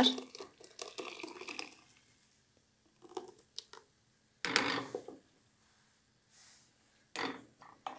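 Milk poured from a carton into a stainless steel pot of cooked rice, pouring and splashing for the first couple of seconds, then a few short gushes and trickles as the carton empties.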